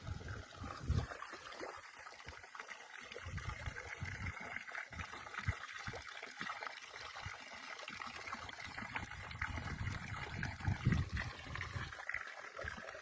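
Water of a small stream trickling and splashing steadily, with uneven low surges; the sound cuts off abruptly at the very end.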